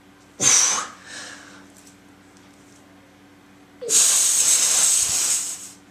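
A man breathing out forcefully while straining into a flexing pose: a short sharp puff, then a long hissing exhale about four seconds in, lasting nearly two seconds.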